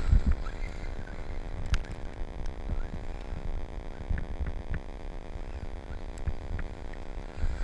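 Radio-controlled trucks running on a slushy snow track: a low, uneven rumble with scattered sharp clicks and ticks.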